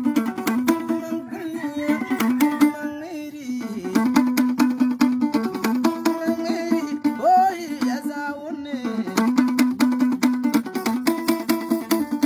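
Kologo, the Frafra two-string calabash lute, plucked in a quick repeating riff. A man sings short gliding phrases over it, about two seconds in and again about seven seconds in.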